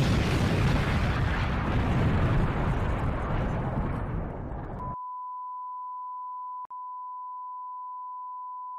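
Explosion sound effect, a deep rumble that slowly fades, then cuts off abruptly about five seconds in and gives way to a steady 1 kHz television test tone, broken once by a brief dropout.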